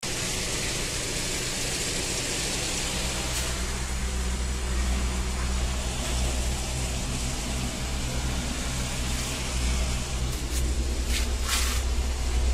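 A steady low engine hum, running unchanged, with a few short hissing sounds near the end.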